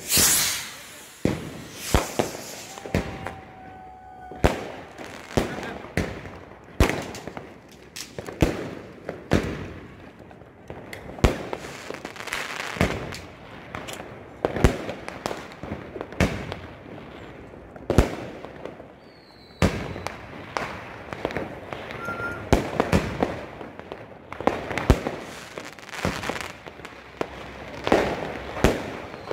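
Fireworks and firecrackers going off: sharp bangs at irregular intervals throughout, often several in quick succession, the loudest right at the start.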